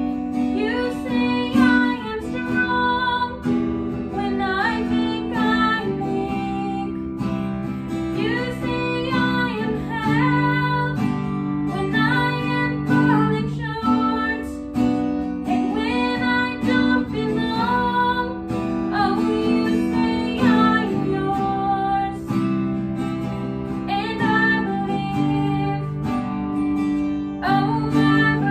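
A woman singing a slow song to strummed acoustic guitar accompaniment.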